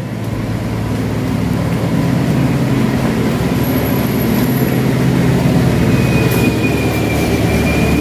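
A vehicle engine running, a steady low drone.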